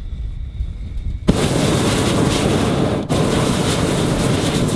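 Hot-air balloon's propane burner firing: a loud rushing hiss that starts suddenly about a second in, breaks off for an instant about three seconds in, then carries on.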